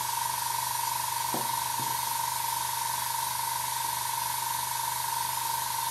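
A small electric motor running steadily, with a high steady whine and a constant hiss that do not change.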